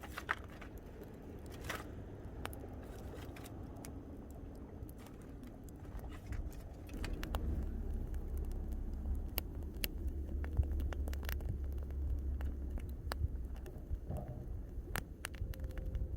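Wood campfire crackling, with scattered sharp pops and snaps. A low rumble grows louder about halfway through.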